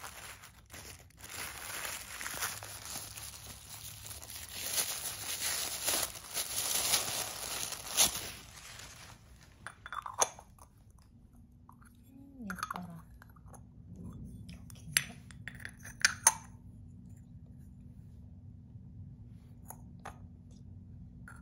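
Tissue paper rustling and crinkling for the first several seconds as it is pulled off. Then a few sharp clicks and light knocks as a small porcelain diffuser case, its lid and a diffuser stone are handled and set down on cloth.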